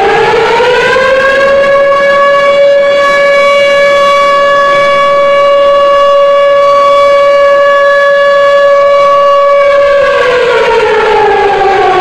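Civil defence siren sounding to mark a moment of silence. Its pitch rises over the first second or so, holds one steady tone with overtones, then begins to fall about ten seconds in.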